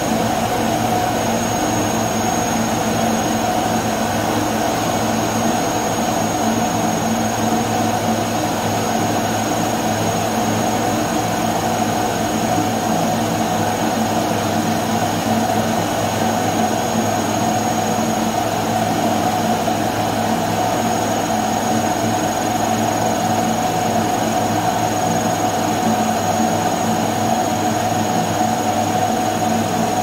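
Vacuum cleaner motor running steadily with its suction hose nozzle pressed against the bare skin of a stomach: an even rushing hum with a thin high whine, unchanging throughout.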